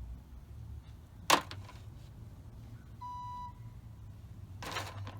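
A sharp click about a second in, then a short electronic beep, over a low steady hum.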